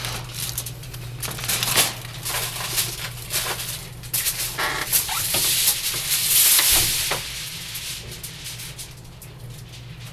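Aluminum foil crinkling and rustling in a run of sharp crackles, loudest about six to seven seconds in and dying down after, over a steady low hum.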